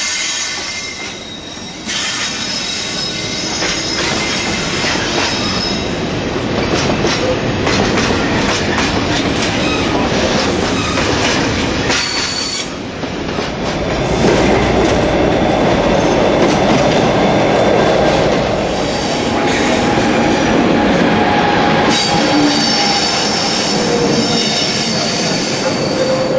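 Freight trains passing at close range: continuous rolling noise of wagons on the track, with high-pitched wheel squeal coming and going. The noise grows louder about halfway through as a second train passes close, then the squeal returns near the end.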